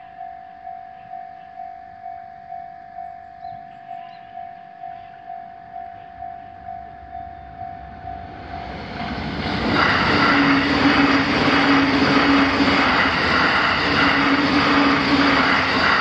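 Japanese level-crossing alarm ringing about twice a second. From about nine seconds in, a JR Joban Line electric train comes up and runs through the crossing: a loud rush of wheels on rails that drowns the alarm, and it begins to fade at the very end.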